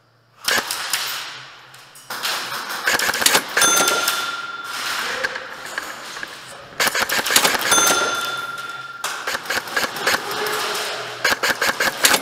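Airsoft guns firing in rapid bursts of clicks, with BBs clattering on plywood, in a large echoing hall. A steady high beep sounds twice, for a second or so each time.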